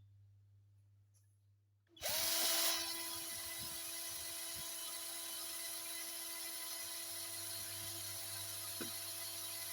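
SUNC 12V cordless drill switched on about two seconds in, spinning up quickly and then running at a steady speed with an even whine.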